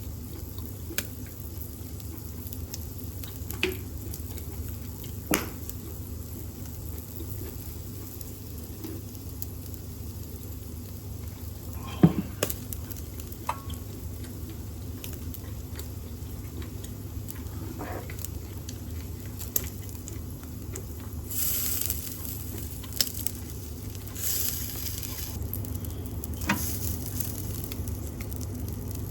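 Pork shoulder loin sizzling on an electric shichirin grill, with scattered pops and crackles, one sharp click near the middle, and two louder spells of hissing in the second half. Under it runs the steady hum of a range-hood fan.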